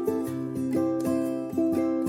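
Background music: plucked acoustic strings, ukulele or guitar, picking a light, steady melody with a held bass note.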